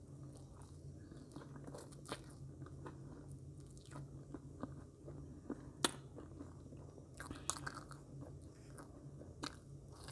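Close-up mouth sounds of a person biting and chewing soft marshmallows off a skewer: scattered sharp mouth clicks, the loudest about six seconds in and a cluster shortly after, over a low steady hum.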